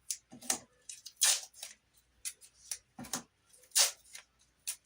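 Tape being pulled off a roll and torn into strips: several short, sharp rips.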